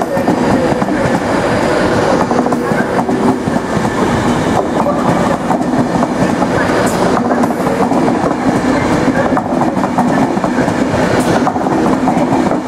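Class 390 Pendolino electric train running past along a platform: steady, loud rolling noise of its wheels clattering over the rail joints as the coaches go by.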